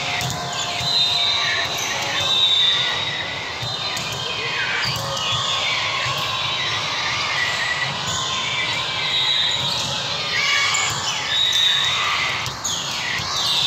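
Indoor volleyball rally in a large, echoing gym: the ball being struck, sneakers squeaking on the hardwood floor and players calling out, over the steady hubbub of the hall.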